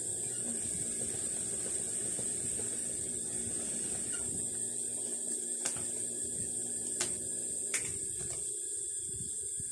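Fabric scissors snipping a strip of cloth and being handled, heard as four sharp clicks in the second half, over a steady hum and high hiss.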